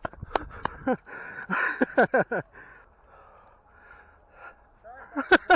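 A man breathing hard after exertion, a breath about once a second, with a few short voice sounds falling in pitch and some sharp clicks.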